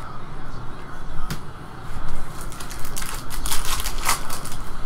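Crinkling and tearing of a shiny trading card pack wrapper being ripped open, a quick run of crackles lasting about two seconds, with a single click about a second in.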